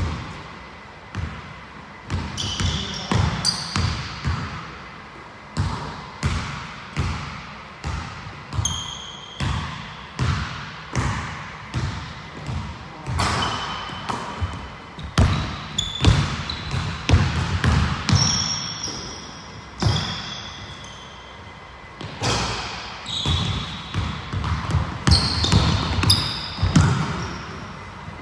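Basketball dribbled and bouncing on a hardwood gym floor, the thuds coming roughly once or twice a second and echoing in the hall, with sneakers squeaking in short high chirps between them.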